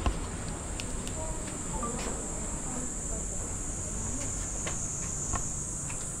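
Insects droning as a steady, high-pitched buzz, with a short knock right at the start and a few faint clicks over a low rumble.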